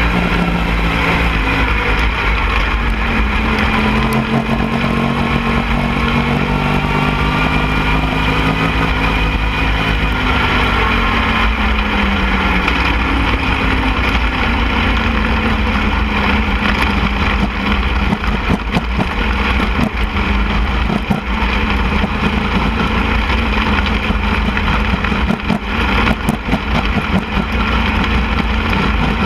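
Lightning sprint race car engine running hard at high revs, its pitch rising and falling slowly, over a steady rush of noise.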